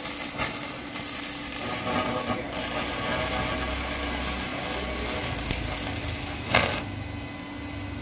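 Stick (MMA) welding arc crackling steadily as a coated electrode burns onto square steel tubing. A brief louder burst comes about six and a half seconds in, and the arc then goes quieter as the welder breaks it off.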